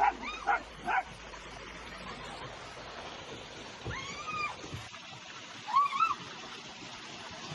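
A dog gives three quick yips, then two longer whining cries, a few seconds in and near the end.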